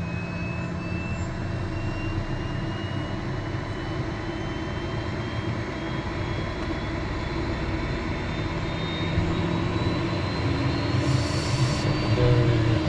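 Pratt & Whitney Canada PW615F turbofan of a Cessna Citation Mustang spooling up during engine start. A whine rises slowly in pitch over a steady low rumble as the fan (N1) speed climbs toward idle. A brief hiss comes about eleven seconds in.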